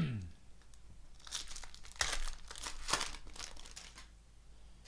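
Trading cards and their plastic pack wrapping being handled, rustling and crinkling in a few short bursts between about one and four seconds in.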